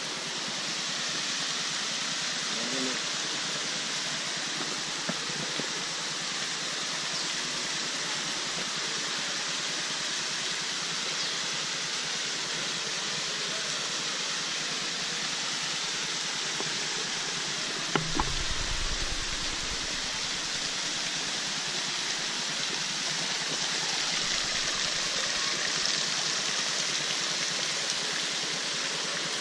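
Waterfall water rushing steadily. A brief thump with a short low rumble comes about eighteen seconds in.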